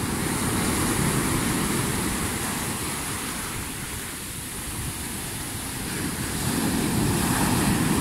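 Rough post-storm sea surf breaking and washing foam up a sand beach: a continuous rushing that eases off midway and swells again as the next wave comes in.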